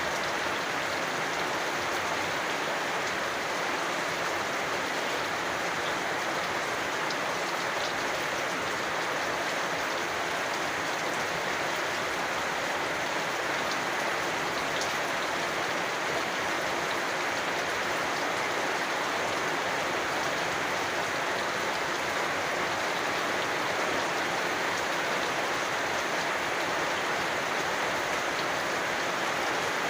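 Steady rain falling, an even hiss with faint scattered drop ticks, unchanging throughout.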